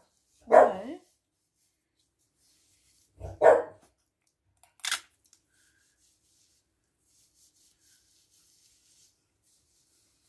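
A dog barking, a few short barks spread over the first five seconds.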